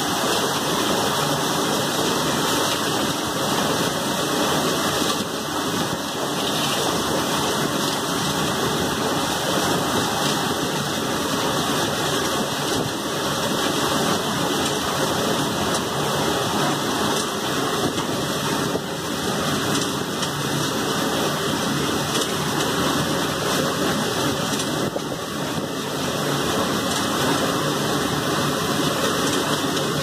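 2005 Hobart CNA-S conveyor dishwasher running, with a steady rush of water spraying inside the machine.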